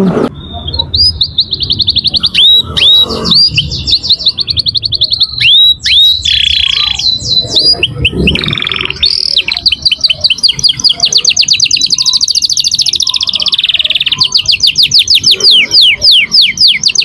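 Domestic canary singing a long, loud, high-pitched song of fast rolling trills and rapid repeated chirps (the 'ngerek' style). One or two harsher notes break in around the middle.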